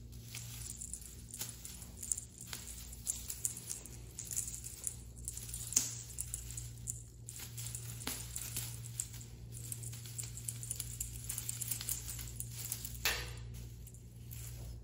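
Scattered light taps, clicks and rustles of cats playing with a wand toy with tinsel streamers and beads on a tile floor, two sharper clicks standing out about six and thirteen seconds in, over a low steady hum.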